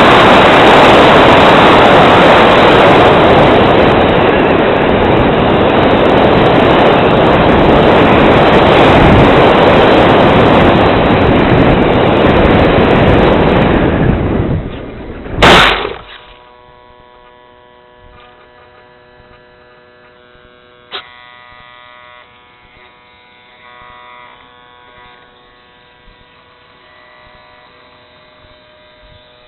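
Air rushing over the camera on a radio-controlled glider in flight, dying away as it slows, then one sharp thud about halfway through as it lands in the grass. Afterwards only a faint steady hum of several tones, with a single click.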